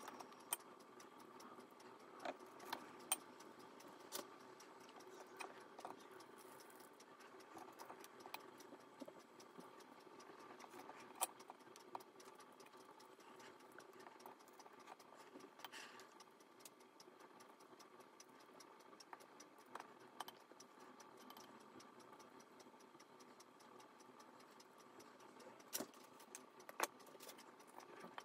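Near silence with a faint steady hum and scattered, irregular small clicks and taps from hands scooping a sticky sesame seed mixture in a stainless steel pot and setting rolled balls on a plate.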